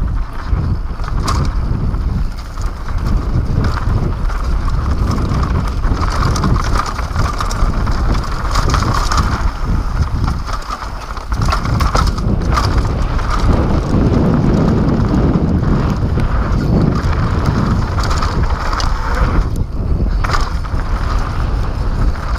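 Wind rushing over an action camera's microphone during a fast downhill mountain bike descent, with tyres rolling over dirt and scattered knocks and rattles as the bike hits bumps.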